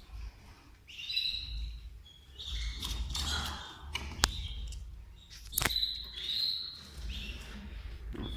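Canaries chirping in short repeated notes, with two sharp clicks, the louder one a little before halfway.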